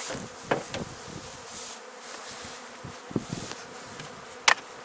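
Honeybees buzzing steadily around an opened hive, with a few sharp clicks or knocks, about half a second in and near the end.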